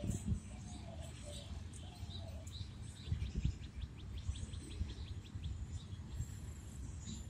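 Small birds chirping outdoors, with a fast trill of short notes about three seconds in, over a steady low rumble.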